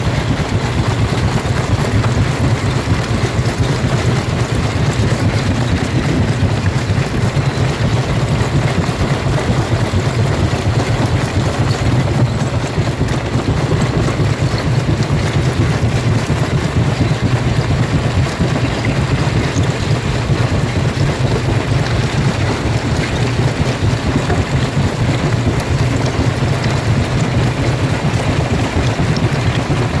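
Jaw rock crusher running: a loud, steady mechanical din with a strong low hum.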